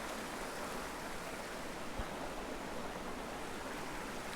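Steady rush of a small mountain creek's flowing water, with a soft knock about two seconds in.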